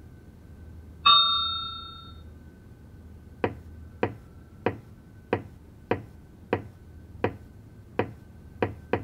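A single bright ping about a second in, ringing out and fading over about a second. Then about ten sharp ticks at an even beat of just under two a second.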